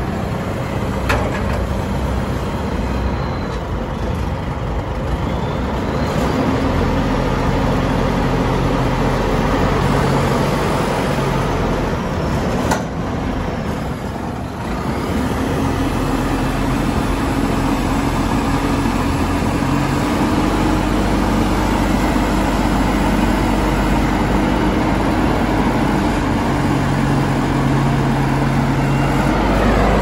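Corn harvester's engine running steadily at idle, a deep even drone with a brief dip in level about halfway through before it picks up again. A single sharp tick sounds a little before the dip.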